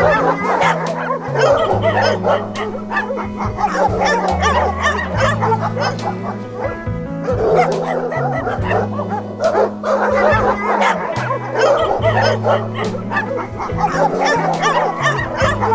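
Dogs barking, yipping and whimpering over background music with a bass line that moves in held notes.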